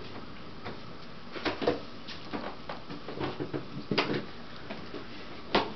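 Scattered light taps and clicks of a cat pawing and nosing at an ant on a hardwood floor, with the sharpest click near the end.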